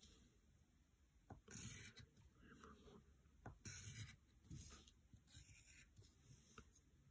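Wooden graphite pencil scratching short straight strokes on paper, faint, about five quick strokes spread a second or so apart.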